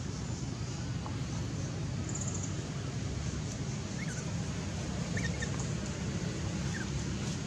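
Steady low outdoor rumble, with a few faint short high chirps about four, five and seven seconds in.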